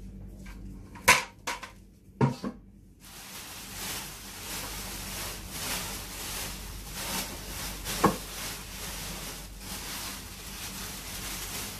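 A few sharp knocks, the loudest about a second in, then the crinkly rustle of clear plastic sheeting being handled and pressed into a plastic bucket, with one more knock partway through.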